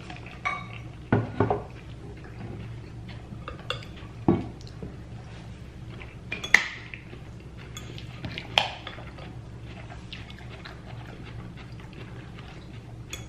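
Fork and dishes clinking and knocking while a salad is eaten: a handful of sharp, separate clinks spread over several seconds.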